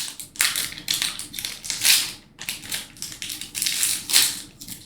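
Foil trading-card pack wrapper crinkling and cards being handled, a run of irregular crackling rustles.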